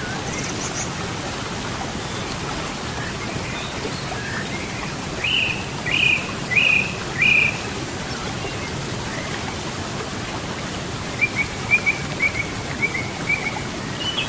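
Running river water making a steady, even noise, with songbirds calling over it: four short, loud notes from about five to seven and a half seconds in, then a quick run of short chirps near the end.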